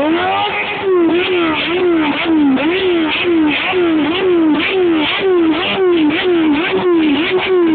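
Suzuki GSX-R inline-four sportbike engine revved hard and repeatedly through a big aftermarket exhaust. The pitch jumps up and sags back about twice a second, and it is loud throughout.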